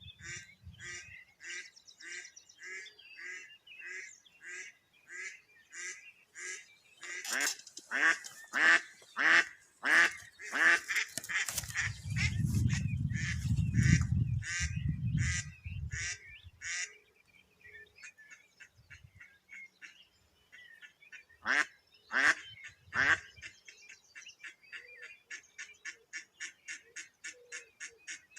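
Live decoy ducks quacking in steady series of about two calls a second. A louder run of calls comes about a quarter of the way in, with a low rumble beneath it, and three loud falling calls come later.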